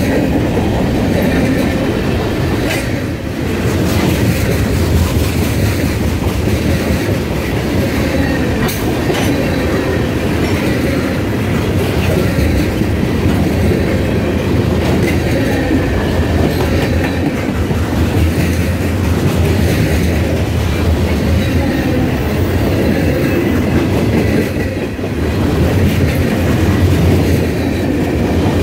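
Freight train's tank cars and covered hoppers rolling past, a steady heavy rumble with wheels clacking over the rail joints.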